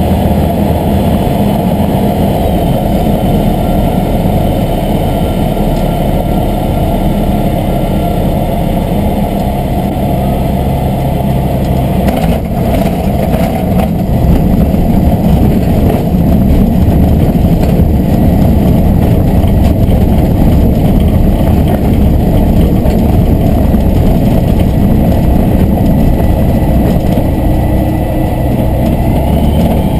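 Aeroprakt A22LS's Rotax 912 engine and propeller running at low power, with the wind rush heard inside the small cockpit. About twelve seconds in there is a short jolt of noise as the wheels touch down, followed by a rougher rumble of the wheels rolling over the grass strip.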